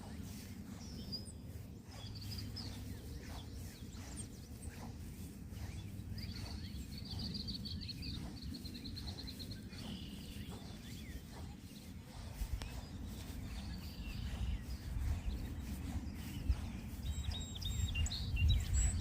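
Outdoor ambience of birds chirping, with a rapid trill a few seconds in and scattered calls, over a steady low rumble that gets heavier near the end.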